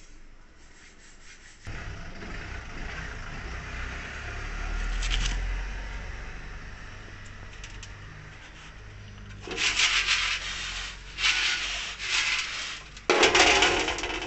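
Molten tin being rubbed over the inside of a heated copper pot to tin it and bring it to a shine: a faint scraping hiss at first, then four loud rubbing strokes in the last five seconds.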